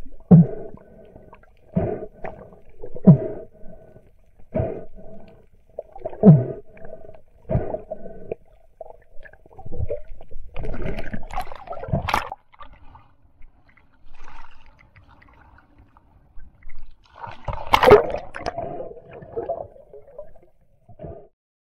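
Underwater sounds: a run of short low knocks about every second and a half over a faint steady hum, then bursts of bubbling and gurgling, the loudest a little past the middle of the second half.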